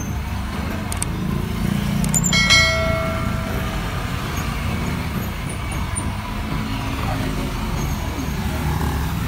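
Motorcycle riding through city traffic: a steady low engine and road rumble with surrounding vehicles. About two seconds in, a click is followed by a short pitched tone lasting about a second.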